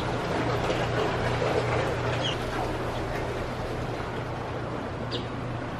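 Outdoor ambience with a steady low hum, and two short high bird chirps, one a couple of seconds in and one near the end.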